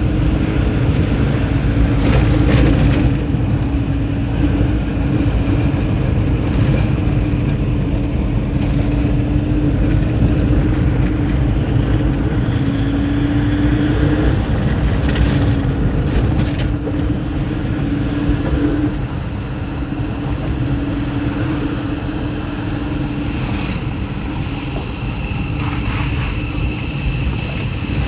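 Steady engine and road rumble of a moving vehicle, with a low engine hum that wavers slightly in pitch.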